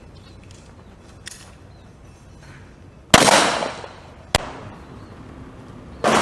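Three 9 mm Glock 17 pistol shots, the first about halfway in and the next two about a second and a quarter and then nearly two seconds later. The first and last ring out in a long echoing tail; the middle one is sharper and shorter. A faint click comes about a second in.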